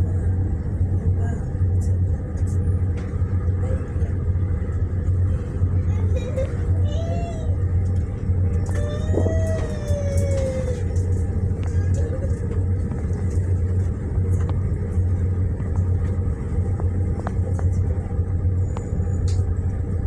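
A boat's engine running steadily: a loud low drone that pulses evenly, with a couple of brief voices over it.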